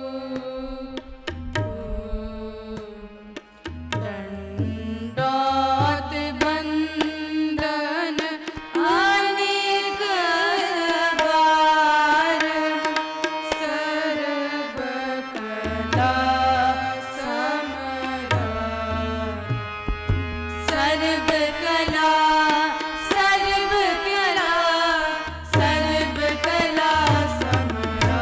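Shabad kirtan in raag Puriya Dhanashri: a girl's voice singing a slow, ornamented melody with tabla accompaniment. The deep bass tabla strokes drop out and come back several times.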